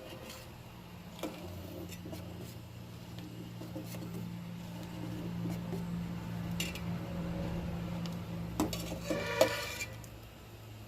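Kitchen utensils clinking and scraping against a pot or bowl, with scattered sharp clicks over a low steady hum. About nine seconds in comes a louder clatter with a brief ringing scrape.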